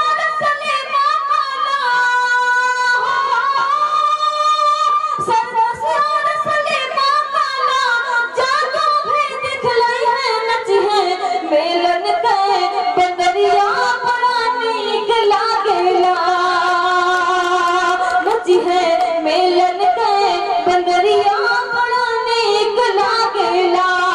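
A woman singing a folk-style geet solo into a microphone. The melody has long held notes that waver and slide between pitches.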